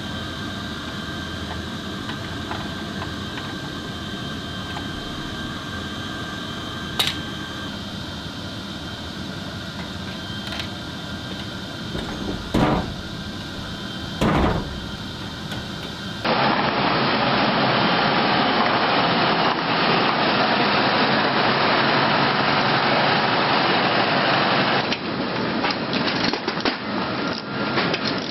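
Steady mechanical noise with a few faint steady tones, broken by a couple of sharp clicks and two low thumps. Midway it cuts abruptly to a louder, steady rushing noise that turns uneven near the end.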